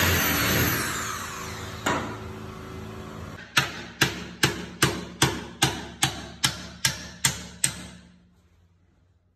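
A noisy whirring sound fades away over the first three seconds. Then a hand hammer strikes about a dozen times at a steady two to three blows a second, each blow ringing briefly, and stops about eight seconds in.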